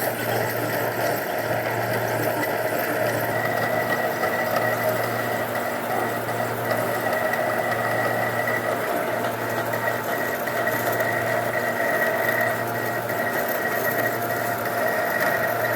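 3D printer running mid-print: a steady mechanical whir with several held tones, a higher tone joining a few seconds in.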